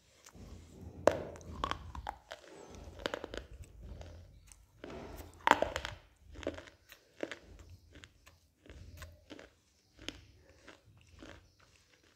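A person biting into and chewing a piece of black shale stone, giving sharp, brittle crunches. The loudest come about a second in and again around five and a half seconds in, followed by smaller, sparser crunches as the chewing goes on.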